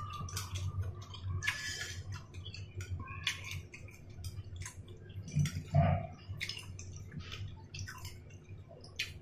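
Eating sounds: chewing and wet mouth noises, with many small clicks as chopsticks work in a ceramic bowl of garlic dipping sauce. A steady low hum runs underneath.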